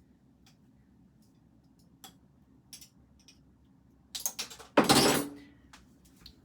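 Small clinks and taps of kitchen items being handled, with a cluster of sharp clicks and a short, louder clatter about five seconds in.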